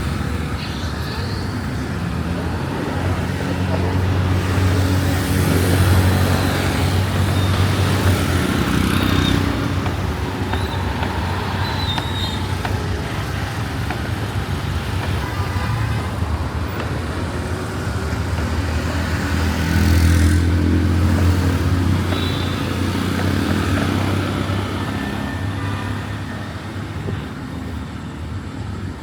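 Street traffic: motor vehicles running and passing, their low engine rumble swelling twice as vehicles go by, over a steady background of street noise.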